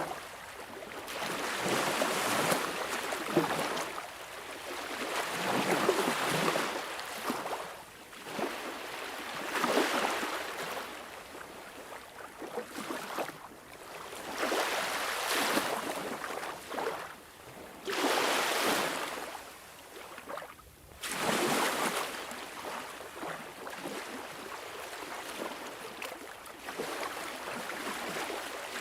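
Sea waves breaking and washing up on the shore, each surge of surf hiss swelling and falling away every few seconds.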